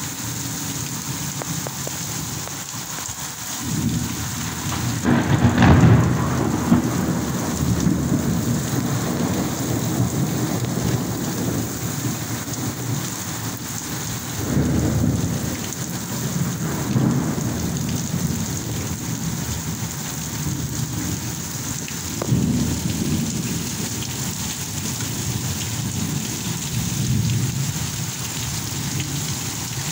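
Heavy rain pouring steadily in a thunderstorm, with low rumbles of thunder swelling up several times. The loudest rumble comes about five seconds in.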